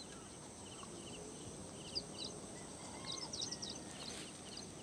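Small birds chirping faintly over quiet open-air background: a short double chirp repeats about twice a second, with a quick flurry of higher chirps about three seconds in.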